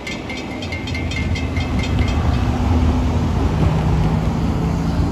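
Railroad grade-crossing bell ringing rapidly, about three strokes a second, stopping about two seconds in. Under it, a steady low rumble of vehicles, with car engines running as traffic moves over the crossing.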